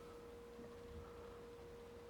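Near silence with a faint, steady, high-pitched hum: a single pure tone.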